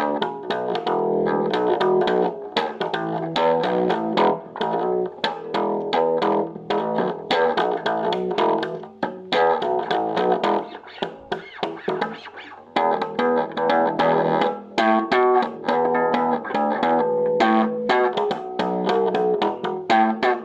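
Boston electric bass guitar played through a small, cheap practice combo amp: an improvised run of quickly plucked notes, with a brief lull about eleven seconds in.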